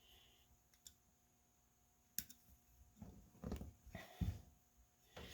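Faint clicks and light knocks of metal brake parts being handled as pad shims are worked onto a motorcycle front brake caliper. A sharp click comes a little over two seconds in, then a cluster of soft knocks near the end.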